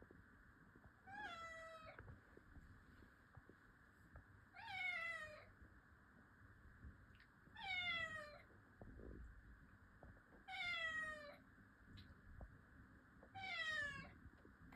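Domestic cat meowing five times, about three seconds apart; each meow is under a second long and drops in pitch at its end.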